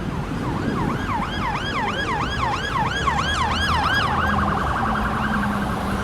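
Emergency vehicle siren in yelp mode, sweeping up and down about three times a second, switching about four seconds in to a faster warble.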